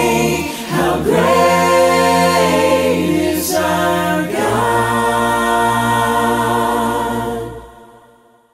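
Mixed voices singing a hymn a cappella in parts, the closing line ending on a long held chord that fades away near the end.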